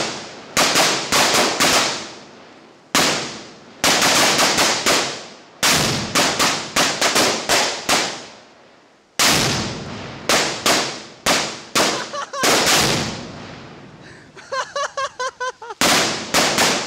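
A chain of large firecrackers going off: loud bangs in irregular rapid clusters, each trailing off in an echo, with short pauses between clusters. Near the end comes a quick run of smaller pops.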